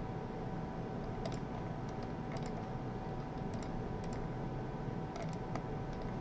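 Scattered clicks of a computer mouse and keyboard, several in quick pairs, over a steady computer hum with a few faint whining tones.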